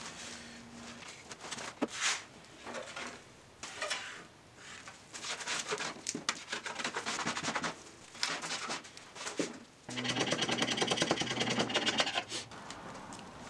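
Scrapers rasping over mirror glass, stripping off softened mirror backing in a series of short strokes. About ten seconds in, a faster, denser run of scraping lasts a couple of seconds.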